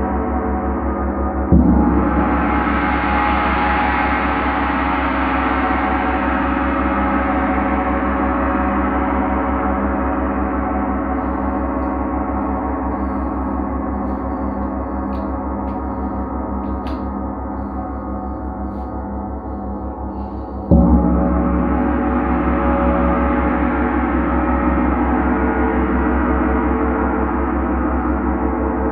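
Large Paiste gong struck with a soft padded mallet twice, about a second and a half in and again about two-thirds of the way through. Each stroke swells into a dense, sustained wash of many overtones that slowly fades.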